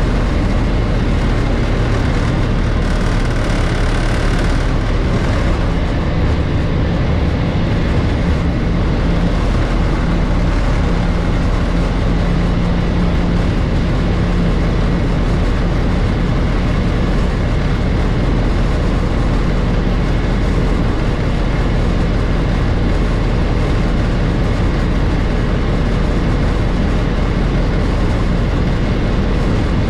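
British Rail Class 33 locomotive's Sulzer eight-cylinder diesel engine running with a steady drone, heard from inside the driving cab.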